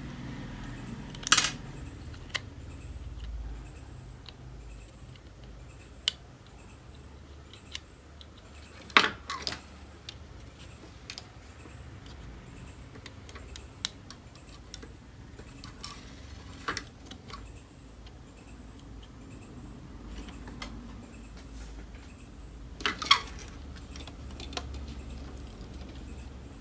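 Scattered clicks and metallic clinks of tools and parts being handled on a workbench, the loudest knocks about a second in, around nine seconds in, and near the end, over a faint low hum.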